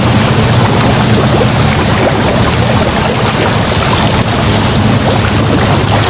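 Ocean sound for sleep: a loud, steady rush of sea and waves with a low, continuous rumble underneath and no separate wave crashes.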